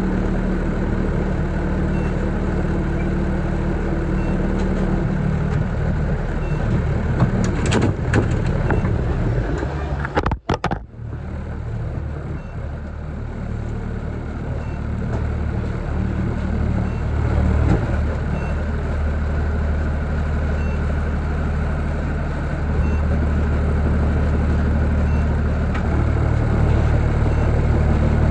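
Delivery van driving with its front doors open: steady engine and road noise, with a faint high beep repeating about every two seconds. The sound briefly drops out about ten seconds in.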